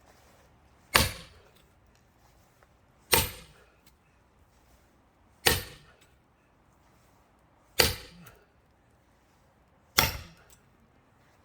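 Sledgehammer striking the backs of axes driven into a pine log to split it for firewood: five hard, evenly spaced blows about every two seconds, each with a brief metallic ring.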